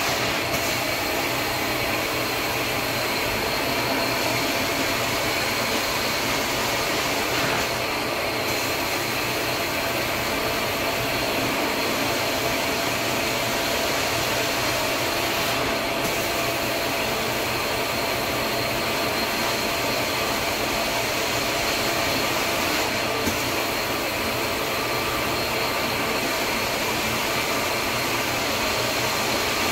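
Carpet extraction machine running steadily, its vacuum making a constant high whine and airy hiss as the carpet is cleaned.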